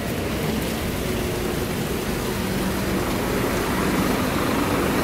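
Diesel engine of a Scania OmniCity N230UD double-decker bus running, heard over a steady rush of street noise.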